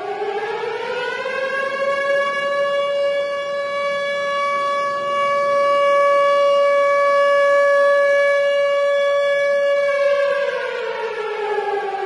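Tornado warning siren wailing. Its pitch rises over the first couple of seconds, holds as a steady tone, then starts to fall about ten seconds in.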